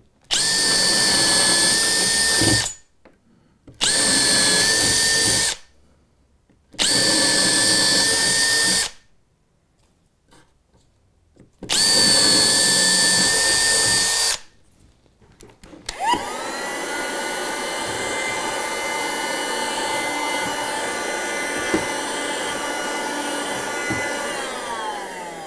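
Makita 18V cordless drill boring holes through a model railway baseboard in four bursts of about two seconds each. About two thirds of the way in, a handheld cordless vacuum starts and runs steadily, then its pitch sags in the last second as its battery runs flat.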